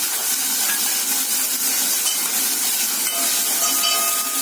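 Grated onion frying in hot oil with bay leaves and curry leaves: a steady sizzling hiss.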